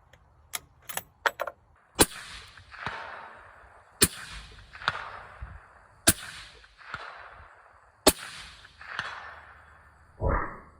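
A few light clicks of handling, then four rifle shots about two seconds apart, each followed under a second later by a fainter second report. A short dull noise near the end.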